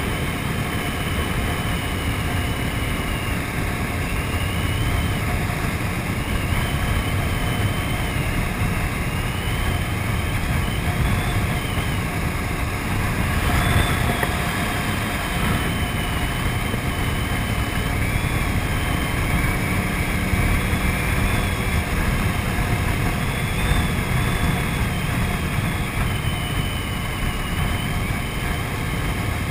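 KTM 950 Super Enduro's V-twin engine running at steady cruising speed, mixed with wind rushing over the microphone. The sound swells briefly about halfway through.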